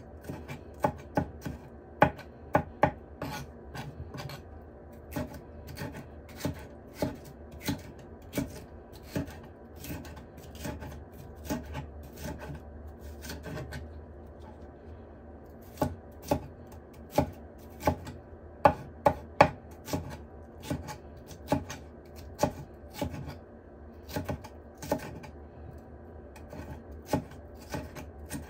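Kitchen knife dicing red bell pepper on a wooden cutting board: irregular knocks of the blade on the board, one or two a second, with a pause in the strokes about halfway through.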